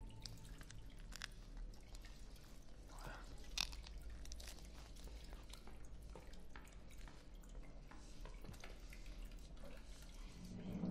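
Quiet room tone with faint scattered clicks and taps from people eating at a table and moving about, one louder tap about three and a half seconds in.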